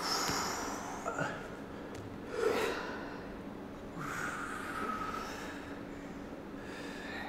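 People breathing audibly while holding Superman back extensions: a few slow, controlled breaths, with an exhale as the body lifts and an inhale as it lowers.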